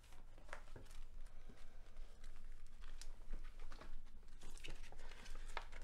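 Soft rustling and crinkling with many small clicks, as something is handled in the hands, over a steady low room hum.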